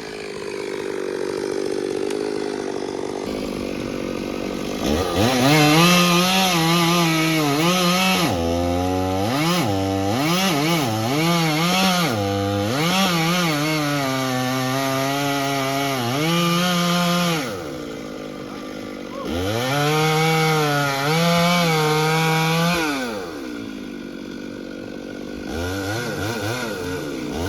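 Chainsaw cutting wood: the engine idles, revs up about five seconds in, and its pitch dips and recovers again and again as the chain bites into the wood. It drops back to idle, revs and cuts again for a few seconds, then idles with short blips of the throttle near the end.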